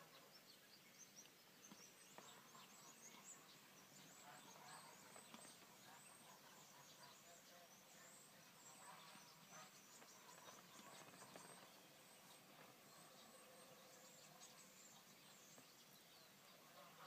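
Geese calling faintly, short calls coming on and off over a light background hiss.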